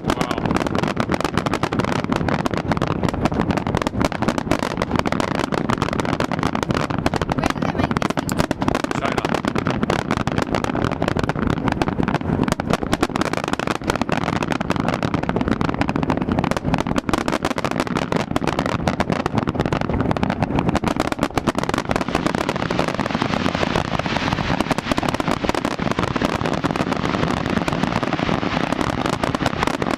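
Large aerial fireworks display: a dense, unbroken barrage of many shells bursting and crackling at once.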